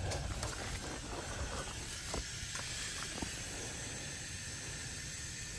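Compressed air hissing steadily out of the tires through a four-tire inflator hose manifold as the tires are aired down, with a few light clicks of handling in the first seconds.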